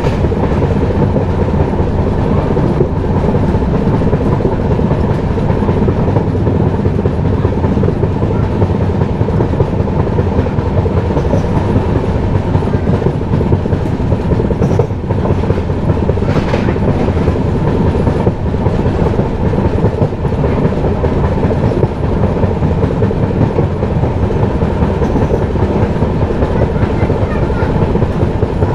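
Passenger train running along the track, heard from on board: a steady loud rumble of the coaches with wheels clattering over the rails.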